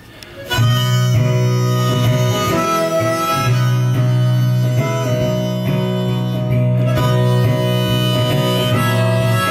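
Harmonica and acoustic guitar playing together, starting suddenly about half a second in: the harmonica holds long notes and chords over the guitar.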